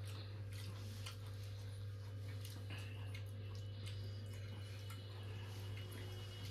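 Quiet eating sounds, with scattered faint clicks and smacks of people eating a meal of curry and roti, over a steady low hum.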